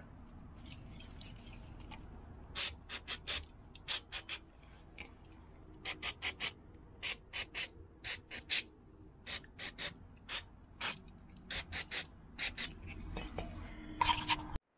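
Aerosol brake and clutch cleaner sprayed onto a brake caliper bracket in many short spurts, quick hisses coming in clusters of two or three.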